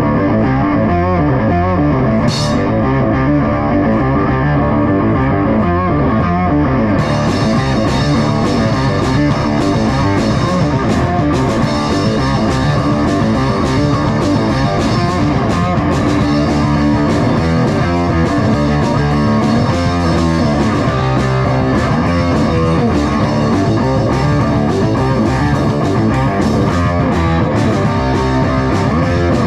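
Rock music with electric guitar over bass. From about seven seconds in, the sound gets brighter and fuller, with sharp percussive strokes on top.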